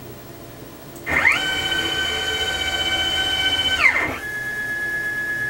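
Stepper motors of a CNC router whining as the machine's axes travel home. Several steady tones ramp up in pitch about a second in, hold, and ramp back down near four seconds as the moves accelerate and decelerate. A single steady tone then follows as one axis keeps moving.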